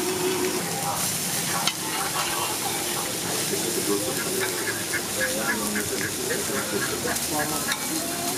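Masala-coated whole fish sizzling in oil on a large flat iron tawa, with a metal spatula scraping and clicking against the pan as the fish are turned.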